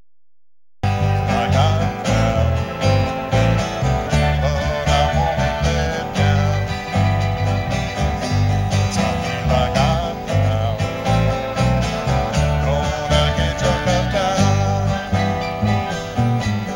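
Country-bluegrass music with guitar and plucked strings over a steady bass beat, cutting in abruptly about a second in.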